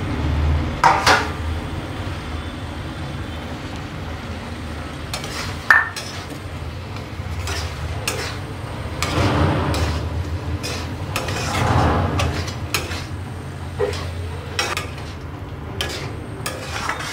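Steel spatula scraping and clinking against a steel kadhai as vegetables are stirred into a thick masala, with irregular clicks, one bright clink about six seconds in, and longer scraping swells in the second half. A steady low hum runs underneath.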